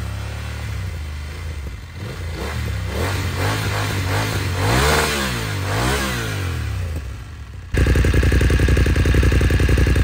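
BMW F750GS 853 cc parallel-twin engine breathing through an Arrow Maxi Race-Tech slip-on exhaust and link pipe, revved in several quick throttle blips whose pitch rises and falls, the highest about halfway through. Near the end it switches abruptly to a louder, steady idle with an even pulsing beat.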